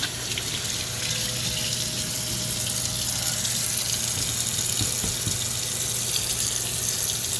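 Water running steadily out of a dishwasher's opened drain, a rush that starts abruptly.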